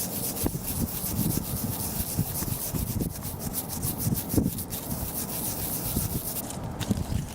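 A small brush scrubbing soil off a freshly dug metal button in quick repeated scratchy strokes that stop about six and a half seconds in.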